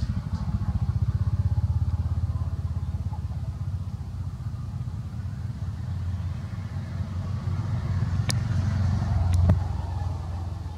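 A small engine running with a steady low rumble. A few sharp clicks come near the end.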